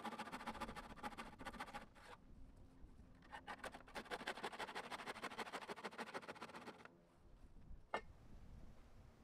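Handsaw cutting through a wooden 2x8 for a scarf joint, in two runs of quick rasping strokes of about two and three and a half seconds with a short pause between, then a single click near the end.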